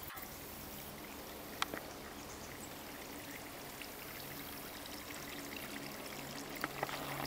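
Small waterfall running weakly in its summer low flow, a steady trickle and pour of shallow water over rock. A sharp click comes about one and a half seconds in, with a few more near the end.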